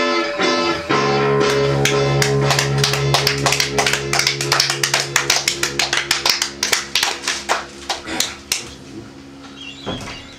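A guitar chord rings out while a small group of listeners claps by hand. The applause starts about a second in and dies away after about eight seconds.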